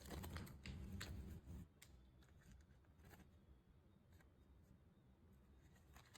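Plastic candy wrapper being handled: crinkles and clicks for the first second and a half or so, then near silence with a few faint ticks.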